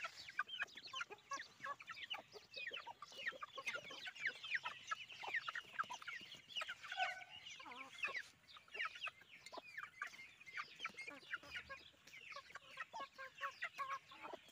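Young aseel chicks peeping constantly while feeding: many short, high, falling cheeps overlapping one another, with one lower call about seven seconds in.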